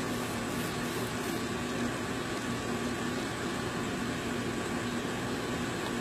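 Steady background hum and hiss of a fan-like machine running in a small room, with no distinct sounds standing out.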